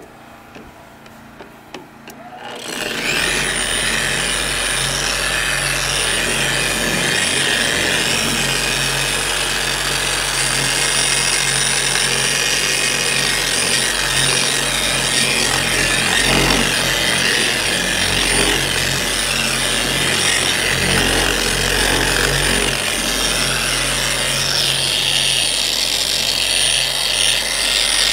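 Harbor Freight 7.5-amp electric polisher starting up about three seconds in, then running steadily with a high whine over the motor. Its coarse foam pad, loaded with heavy-cut compound, rubs across the car's old painted fender.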